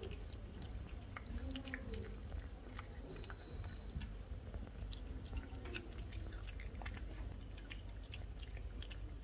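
Lynx point Siamese cat eating sticky egg yolk: a rapid, irregular run of small wet clicks and smacks from its licking and chewing.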